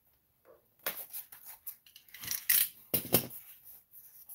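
White polystyrene foam packaging insert being handled, scraping and rubbing in several short bursts. The loudest bursts come about two and a half and three seconds in.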